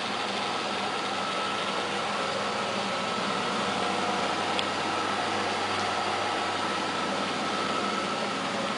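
Rong Fu RF-31 mill-drill running steadily in forward with no load, its 1.5 horsepower, 115-volt motor and spindle giving an even hum with a faint high whine over it.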